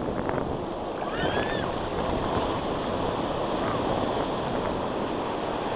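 Ocean surf breaking and washing up the sand at the shoreline, with a faint distant voice about a second in.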